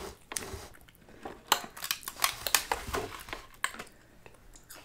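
Eating sounds at a table of snacks: a quick run of sharp clicks and crunches, densest in the middle, with utensils tapping on dishes and plastic trays.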